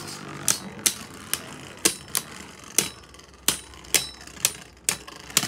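Two Beyblade Burst tops, Brave Valtryek and Prominence Phoenix, spinning in a plastic stadium and colliding with sharp plastic clacks, about two a second at uneven spacing. The loudest clack comes near the end.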